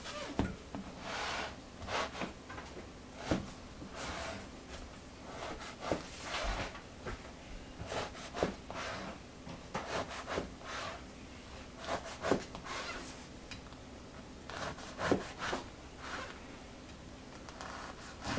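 A kitchen knife sawing through a crusty baguette on a plastic cutting board: repeated short strokes of the blade through the crust, with sharp knocks as the blade meets the board.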